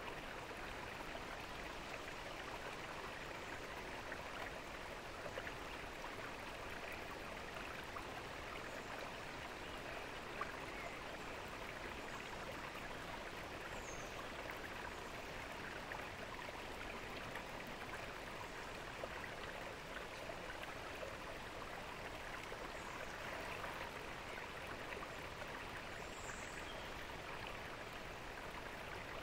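Garden fountain water splashing and trickling steadily.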